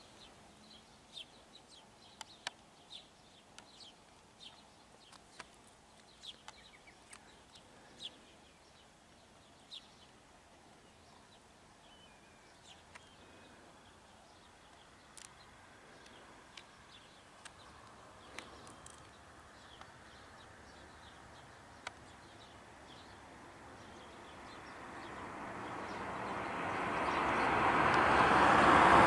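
Birds chirping in open countryside: short high calls scattered over a quiet background. Near the end a rushing noise swells steadily until it is loud.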